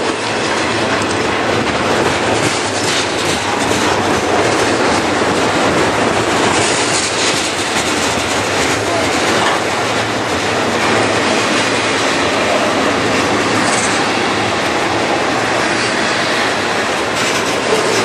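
Double-stack intermodal freight train's container well cars rolling past on a curve: a steady, loud rumble and rattle of steel wheels on the rails.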